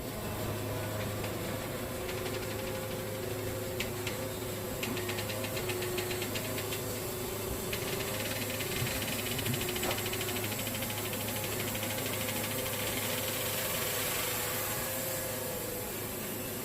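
Wood-Mizer portable band sawmill running steadily, its engine holding an even pitch while the band blade saws through a red cedar log, with a fine rapid rasp from the cut through most of the stretch.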